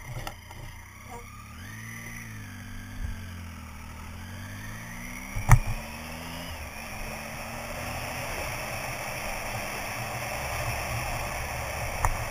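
Triumph Tiger motorcycle engine rising in pitch as the bike accelerates, with wind rush on the camera growing louder as speed builds. A sharp knock about five and a half seconds in, and another near the end.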